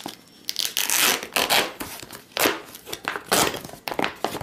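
Heavy plastic MRE meal pouch being torn open by hand: several separate tears, with the plastic crinkling between them.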